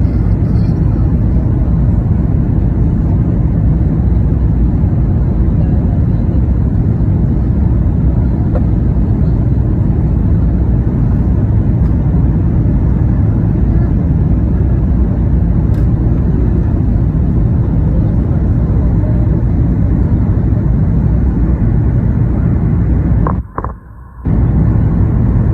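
Steady, loud low rumble of a vehicle in motion. It cuts out abruptly for under a second near the end, then resumes.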